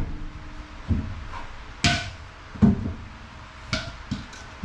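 Pieces of 2x4 lumber being set and knocked into place as a brace: about half a dozen sharp wooden knocks and clunks, roughly one a second, the loudest about two seconds in.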